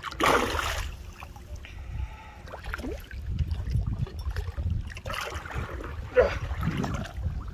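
Hooked northern pike thrashing at the surface beside a boat, splashing and sloshing water. The loudest splash comes right at the start, with more splashing around the middle and near the end, over a steady low rumble.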